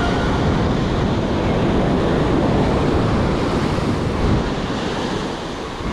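Ocean surf washing up a sandy beach, a steady rushing wash, with wind buffeting the microphone.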